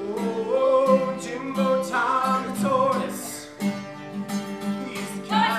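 Acoustic guitar strummed in chords with a voice singing a melody over it.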